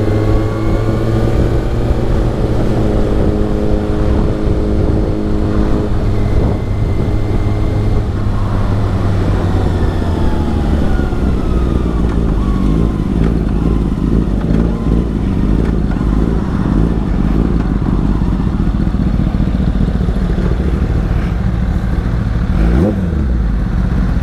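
2018 Kawasaki ZX-6R's 636 cc inline-four engine with an Akrapovic slip-on exhaust, running under way. The engine note holds steady for the first several seconds, then turns rougher and mixes with a rushing noise, with some rises and falls in pitch.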